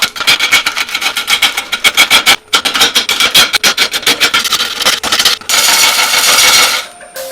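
Turning tool cutting into a log spinning on a wood lathe: a fast, even rhythm of hits as the gouge bites. Near the end it becomes an unbroken hiss for about a second, then cuts off.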